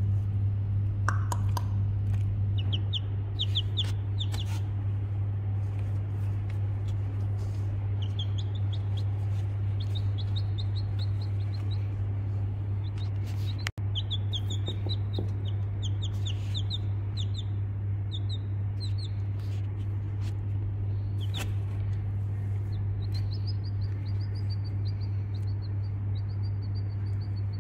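Baby chick peeping: runs of short, high chirps, several a second, coming in spells, over a steady low hum.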